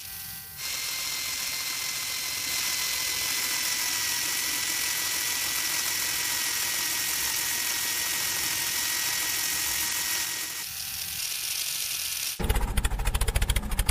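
Small geared DC motor spinning a toy auger as it bores into sand, a steady whir with a thin high whine. Near the end a louder rapid rattling takes over.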